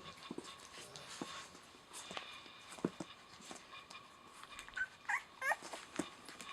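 Eleven-day-old Rottweiler puppies whimpering: a few short, high squeaks about five seconds in, among scattered soft clicks and knocks.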